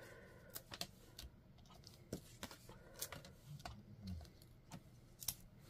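Faint, scattered light clicks and taps, about ten in all, from fingers peeling adhesive foam dimensionals off their backing sheet and pressing them onto a cardstock circle.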